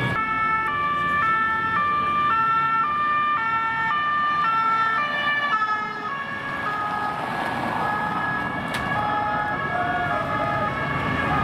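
Two-tone emergency sirens of passing police cars, the tone stepping between a high and a low pitch about twice a second. About six seconds in the pattern changes as other sirens at different pitches take over, over the noise of car traffic.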